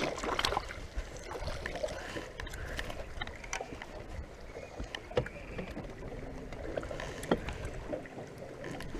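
Light knocks and handling noises aboard a fishing boat over a low, steady background noise, with a couple of sharper knocks past the middle.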